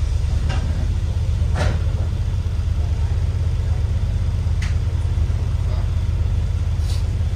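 Steady low rumble of a London double-decker bus heard from the upper deck, with a few brief knocks, one about a second and a half in.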